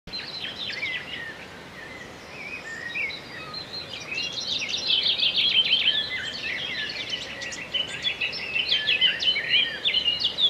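Songbirds singing: a busy stream of varied high chirps and twitters, several notes overlapping, growing denser and louder about halfway through.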